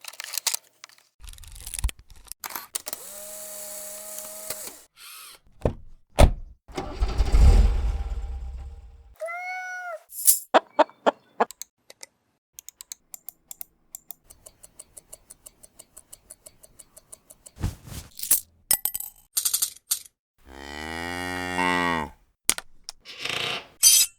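A rapid string of unrelated editing sound effects: clicks and short hits, a loud low whoosh, brief pitched tones, a run of evenly spaced ticks, and a long pitched sound rich in overtones near the end.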